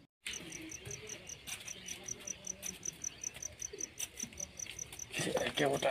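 Cricket chirping steadily, a regular high-pitched pulse about five times a second.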